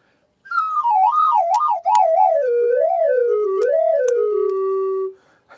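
A whistle-like tone that wobbles up and down while sliding steadily lower in pitch for about four and a half seconds. It ends on a held low note and then cuts off, with a few faint ticks along the way.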